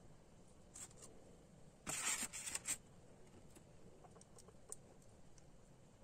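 Handling noise from small plastic-and-metal DC barrel jacks: a couple of light clicks, a short burst of scuffling and clattering about two seconds in, then a few faint ticks.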